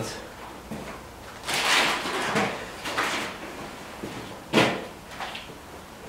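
Plastic bags crinkling and rustling as bagged whole chicken carcasses are lifted and handled, with a sharp knock about four and a half seconds in.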